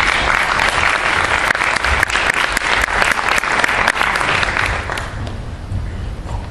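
Theatre audience applauding, a dense patter of many hands clapping that dies away about five seconds in.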